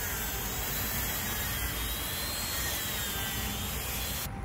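Dremel rotary tool running a small wire brush against a garnet's mica schist matrix, scrubbing the rock off the crystal faces: a steady high-speed whine with a grinding hiss. It cuts off suddenly near the end.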